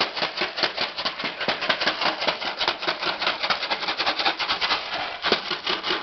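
Blue plastic tarp crinkling and crackling without pause as a Malinois puppy rolls and tussles in it, a rapid run of many crackles a second.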